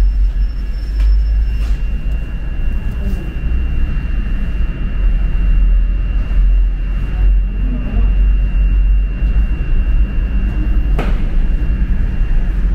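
Steady low rumble of an underground bus terminal, with a thin, steady high whine over it and one sharp click near the end.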